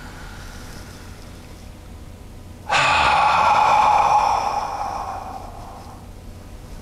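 A deep, breathy sigh out through the open mouth, starting nearly three seconds in and fading away over about three seconds. It is the release phase of a breathing exercise: shoulders drawn up to the ears on a deep inhale, then let go with a big sigh.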